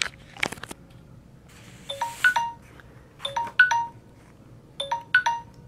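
Electronic countdown-timer chime sounding while the answer time runs: a quick jingle of a few short notes, repeated three times about a second and a half apart. A few sharp clicks come near the start.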